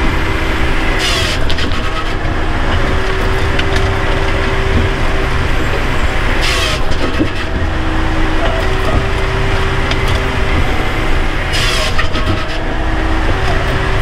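Bells 4000 firewood processor running, its engine and hydraulics a steady drone heard from inside the operator's cab, with a hum that comes and goes. Three short, sharp hissing noises come about five seconds apart.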